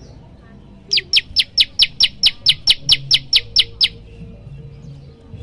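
Common tailorbird giving its 'tembakan' call: a rapid series of about fourteen quick, high, down-sweeping notes at roughly five a second, lasting about three seconds and starting about a second in.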